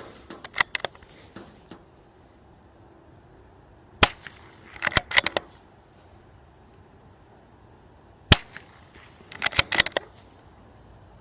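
Two .22 LR shots from a Bergara B14R bolt-action rifle, about four seconds apart, each a short sharp crack. Each shot is followed about a second later by a quick run of sharp clicks, typical of the bolt being cycled for the next round.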